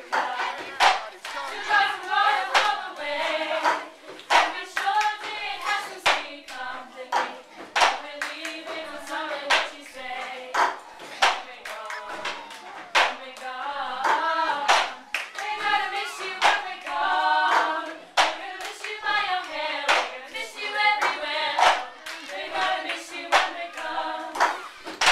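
A group of children singing together with steady hand claps, about one clap a second.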